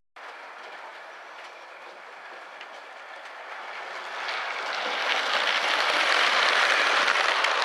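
Model Class 350 electric multiple unit running along the layout's track, growing louder as it approaches and passes close by, with rapid clicking of its wheels over the rail joints.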